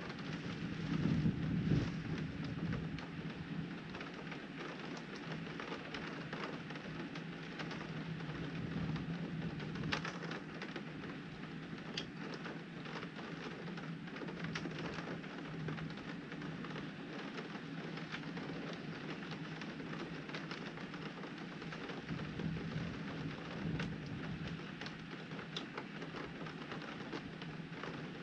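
Steady rain falling and striking a window pane, with scattered sharp drop ticks. A low rumble of thunder swells about a second in and again later.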